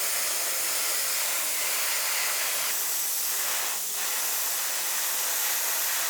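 Steady hiss of spray paint being sprayed, with a brief dip about four seconds in.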